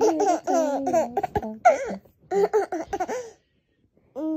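Laughter in quick pulses that bend up and down in pitch, coming in several short bouts over about three seconds. After a brief silence, a woman's voice starts again at the very end.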